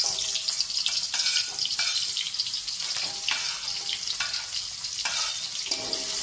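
Sliced shallots and garlic sizzling in hot oil in an aluminium wok. A metal utensil makes short scrapes and taps at irregular intervals as it pushes them off a cutting board into the pan and stirs them.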